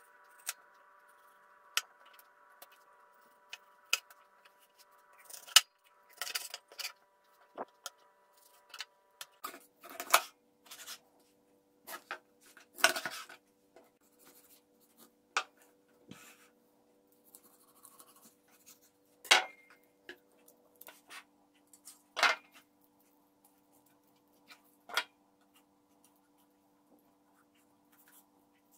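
Kitchen knife cutting and scraping a whole coho salmon on a wooden cutting board while the fins and tail are trimmed off: irregular sharp knocks of the blade on the board with short scrapes between, over a faint steady hum.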